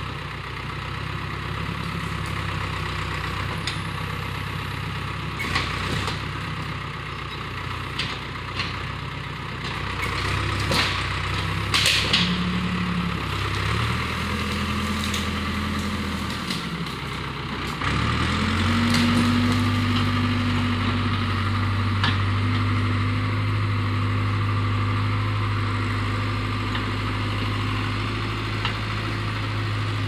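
Backhoe loader's diesel engine running. Its pitch swells and falls back around the middle, then revs up to a higher steady speed for the second half. Scattered sharp knocks and clunks sound over it.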